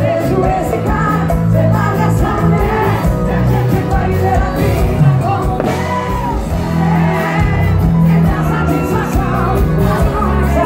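Live sertanejo band music: two women singing lead into microphones over accordion, acoustic guitar, bass and drums.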